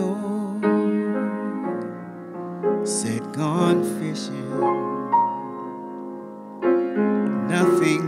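Upright piano playing slow, sustained ballad chords under a man's jazz vocal. The sung phrases, with vibrato, come in about two and a half seconds in and again near the end.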